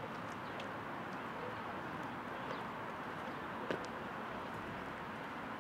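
Steady outdoor background noise, with one sharp boot stamp on tarmac a little past halfway as the marching drill party halts.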